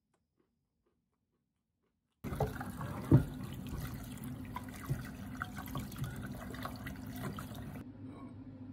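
Kitchen tap water running into a pot of raw chicken in a stainless-steel sink as a hand rubs the pieces clean, with one sharp knock about a second after the water starts. Silent for the first two seconds; the water stops near the end.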